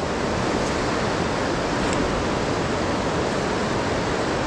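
Fast-flowing river current rushing through a rocky gorge: a steady, even noise of water.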